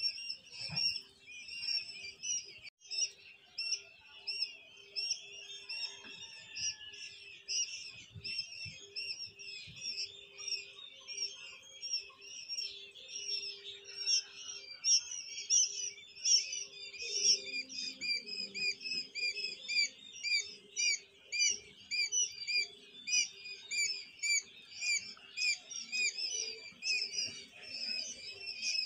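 A crowd of quail chicks peeping nonstop, with many short, high cheeps overlapping.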